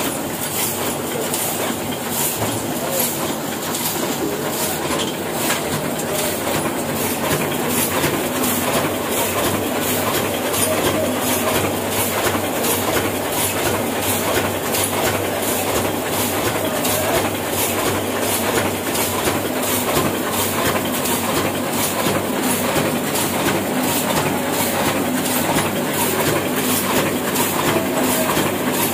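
Old Hashimoto sheet-fed offset printing press running at speed, a steady mechanical clatter with an even beat of about two to three strokes a second as it feeds and prints sheets.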